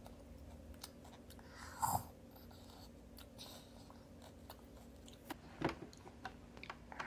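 A toddler eating: a small wooden spoon clicking and scraping in a plastic bowl, with soft chewing and mouth sounds. The clicks come more often in the last couple of seconds, over a faint steady hum.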